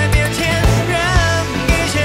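Background pop song: a singer's melody over sustained bass and a steady drum beat.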